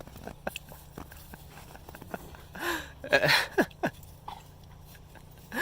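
A dog rolling and rubbing its back in snow: scattered crunching and scraping, with a louder burst of rustling and short huffing sounds about three seconds in.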